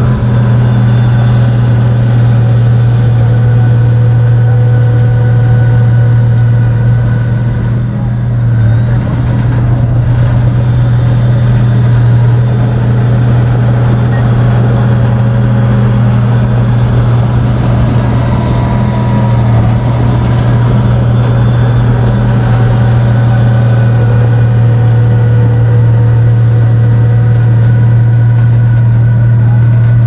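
Komatsu bulldozer's diesel engine running steadily and loudly, with a brief dip in level about eight seconds in.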